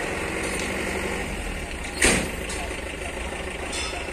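Heavy vehicle engines idling steadily under one loud gunshot about two seconds in that echoes briefly, with a couple of fainter distant cracks of gunfire.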